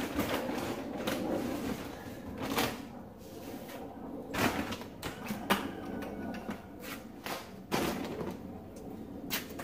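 Chicken feed being scooped out of feed sacks and poured into a plastic bucket: rustling and scraping broken by irregular clatters and knocks.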